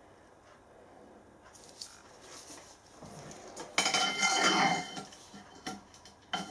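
Steel parts handled on a workbench: a few faint clicks, then, about four seconds in, a second-long metallic clatter and scrape with a ringing note, followed by a few light clinks.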